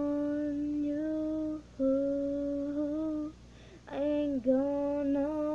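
A girl's unaccompanied voice holding long wordless notes of a melody, three phrases of about a second and a half each with short breaths between them.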